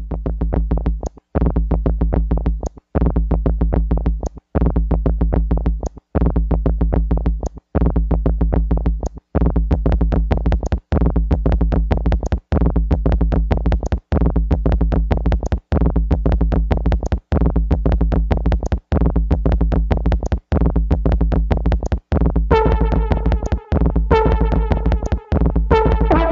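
Electronic synthesizer music with a heavy low bass and fast ticks above it, in a phrase that cuts out briefly about every one and a half seconds. A brighter, higher synth line comes in near the end.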